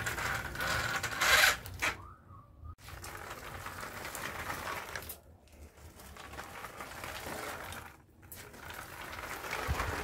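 Small DC motor and gearing of a cardboard toy tractor whirring as it drives over concrete. The whirring breaks off briefly about two, five and eight seconds in, then starts again.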